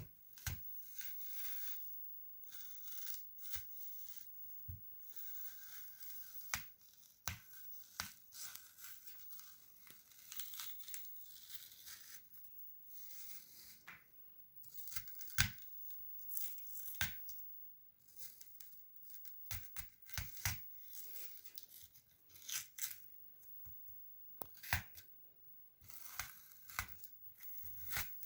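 Irregular handling noises: sharp clicks and knocks mixed with short tearing, rustling and scraping sounds, as of ingredients being cut, peeled or handled in a small room.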